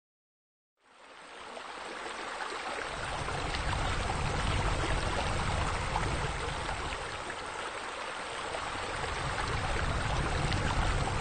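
Fire table flames as an ambient effect: a steady rushing hiss with a low rumble and faint crackles, fading in over the first couple of seconds.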